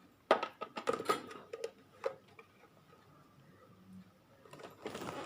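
Clicks and light clatter of a new mixer grinder's jars and lids being handled: a quick run of sharp knocks in the first two seconds, then a short rustling noise near the end. The grinder's motor is not running.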